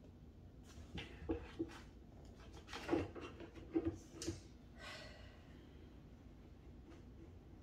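A cat pawing after a toy on a wooden floor by a wooden cabinet: a quick run of light taps and knocks, followed about five seconds in by a brief pitched vocal sound.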